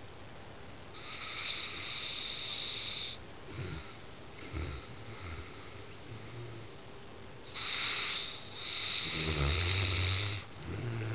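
A St. Bernard snoring in its sleep: several long, hissing snore breaths, the loudest near the end carrying a low rumble.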